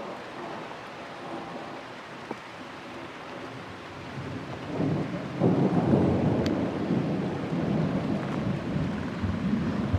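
Thunder from distant lightning breaks in about halfway through as a low rumble, swells quickly and rolls on for several seconds, slowly easing. Underneath is the steady hiss of light rain. The whole is a little muffled by a towel covering the camera.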